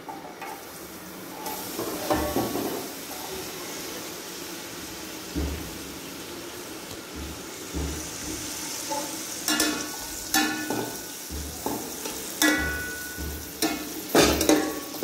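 Sliced onions frying in hot oil in an aluminium pot, with a steady sizzle that begins as they go in. A metal slotted skimmer scrapes and knocks against the pot in repeated stirring strokes, loudest near the end.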